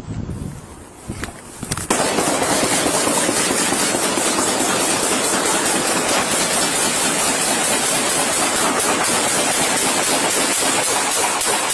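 A rapid, unbroken crackle of many bangs a second, starting suddenly about two seconds in and holding loud: New Year's fireworks and celebratory gunfire.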